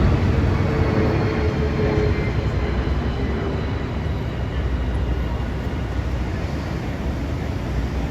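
Steady low rumble of a moving rail car, with a faint whine that falls slightly in pitch over the first two seconds.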